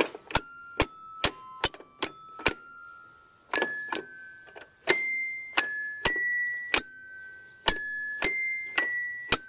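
Little Tikes toy piano played one note at a time, its metal tone bars giving bright chiming notes that ring and fade. The tune starts with quick notes, pauses briefly about three seconds in, then goes on with higher, more spaced-out notes.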